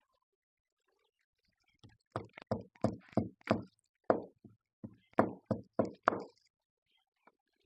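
Hammer knocking a nail into a wall: about a dozen sharp strikes in two runs, with a short pause between them.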